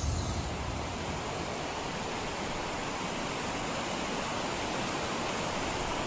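A steady, even rushing hiss with no distinct events.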